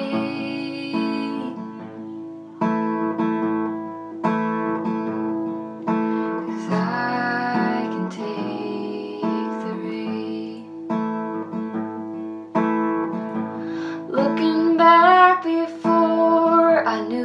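Acoustic guitar strummed in slow, regular chords, with a young woman singing solo over it; the singing comes in phrases and is loudest near the end.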